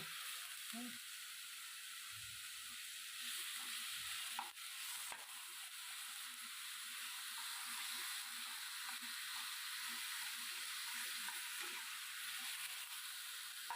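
Minced chicken cooking in oil in a kadhai, a steady sizzle, with a few faint knocks about four and five seconds in.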